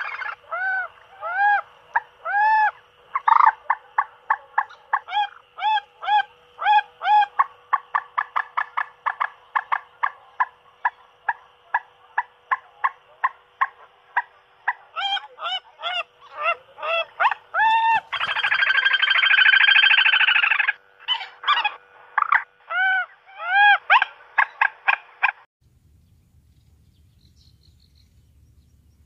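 Recorded bird call played through a portable speaker as a trapping lure: a rapid run of short, arched whistling notes, some very loud, over a faint steady hum, with a harsher, rasping stretch a little past the middle. It cuts off suddenly about 25 seconds in, leaving only a faint low rumble.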